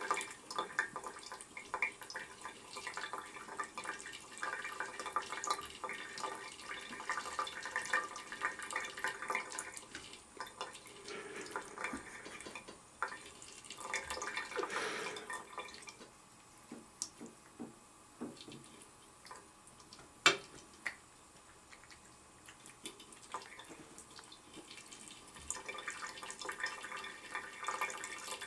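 Tap water running into a sink, splashing unevenly, with a quieter stretch of separate drips and splashes in the middle and a single sharp click about two-thirds of the way through.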